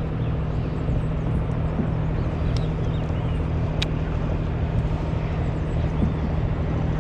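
Steady low drone of a boat engine running, with one sharp click about four seconds in.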